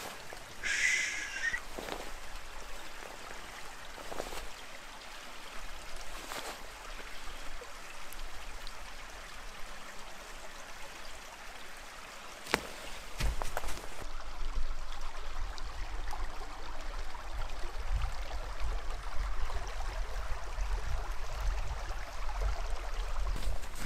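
Small stream flowing steadily, with a short high chirp about a second in and a low rumble joining about halfway through.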